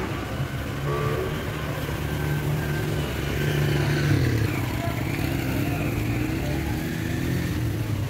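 A motor vehicle's engine running steadily, heard from on board while riding along the road, its note dipping and rising a little about halfway through.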